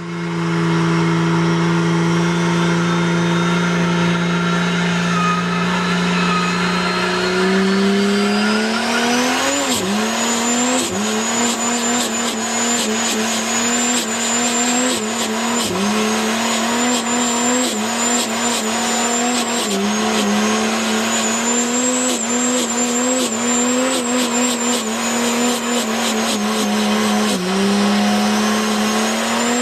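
A turbocharged RB30 straight-six in a VL Turbo Commodore, held at steady revs, then revving up with a high whistle rising alongside about eight seconds in. It is then held at high revs through a burnout, the rear tyres spinning and squealing, with the revs dipping briefly a few times.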